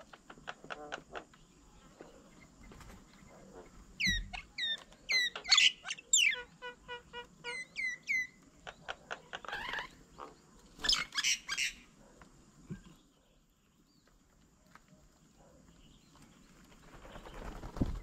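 Birds calling around a fruit-laden bird table: a burst of sharp, downward-slurring whistles from about four seconds in, with a quick run of repeated notes among them, then more chattering calls a few seconds later.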